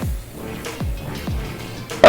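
Background electronic music with a steady beat: a deep kick drum about twice a second under held notes.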